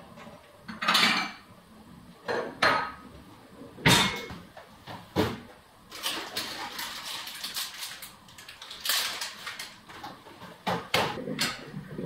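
Kitchen handling: a drawer sliding and dishes and cutlery clattering, with several sharp knocks in the first five seconds, the loudest about four seconds in. Then rustling and light clicks as a plastic fridge-freezer drawer is rummaged through and a plastic bag is handled.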